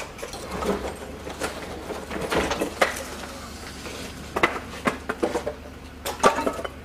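Irregular knocks and clatter of hard objects, about a dozen short hits spread through, over a steady low hum.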